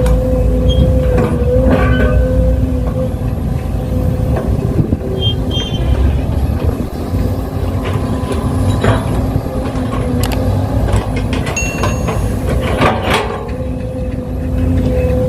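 Excavator and dump truck machinery running: a steady low engine rumble with a constant whine and occasional short knocks.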